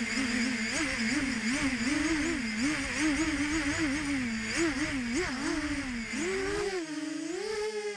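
Electric whine of the ZMR-250 quadcopter's small brushless motors and propellers, its pitch wavering up and down as the throttle is blipped. Near the end it glides up to a higher, steadier whine.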